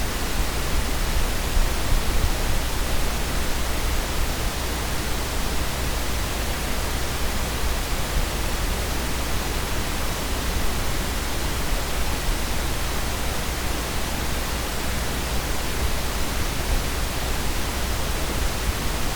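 Steady hiss from the recording's microphone and preamp, with a constant low hum underneath, unchanging throughout.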